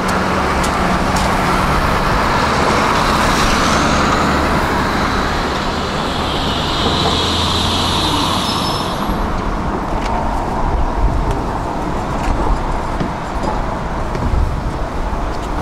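Tram running along its track, heard from on board: a steady low hum and rumble, a high-pitched squeal for a few seconds around the middle, then rattling and repeated clacks of the wheels over the rails.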